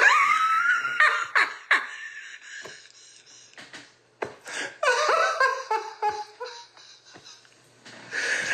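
A man laughing hard in uneven bursts: a loud rising cry at the start, short bursts after it, and a longer laughing stretch about halfway through, with quieter pauses between.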